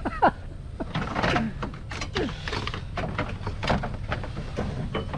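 Irregular knocks, clicks and short squeaky scrapes of car parts and tools being handled while fitting a radiator.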